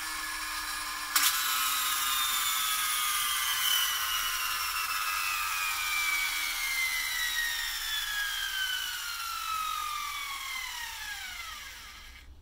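Flywheel friction motor of a Tonka Clutch Popper toy car spinning freely, a whine that falls slowly and steadily in pitch as the flywheel coasts down. A click comes about a second in, after which the whine starts higher. It dies away and stops just before the end.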